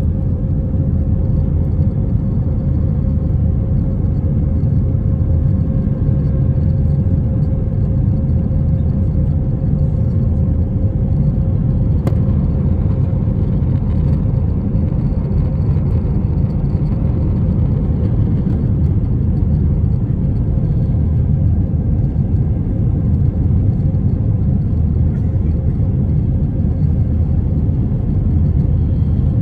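Steady low rumble of jet engines and airflow inside the cabin of an Airbus A321-232 with IAE V2500 engines, climbing out after takeoff with flaps extended. A faint steady hum runs under it and fades out about halfway through.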